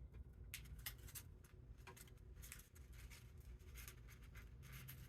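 Near silence: room tone with faint, scattered clicks and rustles of hands handling small parts.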